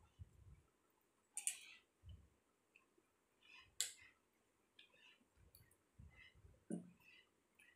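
Metal spoons clinking and scraping on plates, with a few sharp clicks spread irregularly, and a glass tumbler set down on a wooden table about three-quarters of the way in.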